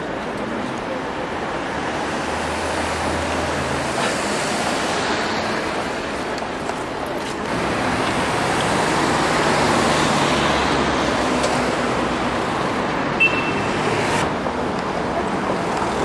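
Steady road traffic noise, swelling somewhat louder about eight seconds in, with one short high beep about thirteen seconds in.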